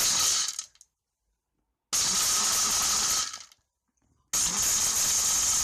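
Electric kitchen blender motor switched on three times in short bursts, a loud whirring with a steady high whine, each burst stopping with a brief wind-down.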